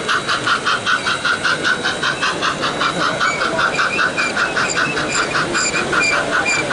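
Large-scale model steam locomotive chuffing steadily as it runs, about five chuffs a second. From about three seconds in, short high chirps repeat over the chuffing.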